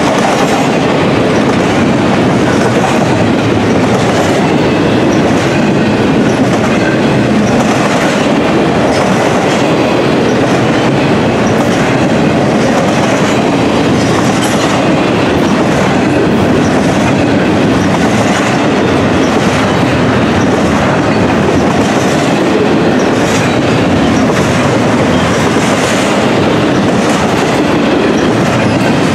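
Double-stack intermodal well cars rolling past at speed: a loud, steady rumble of steel wheels on rail, with regular clicks as the trucks pass over joints.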